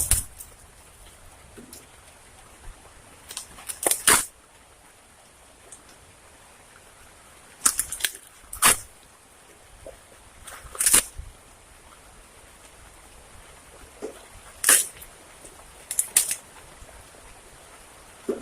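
Sharp cracks or knocks in irregular clusters of one to three, about six clusters in all, over a steady hiss of rain.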